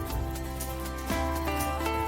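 Background music: a gentle tune of plucked, pitched notes over a steady bass, with notes changing about every half second.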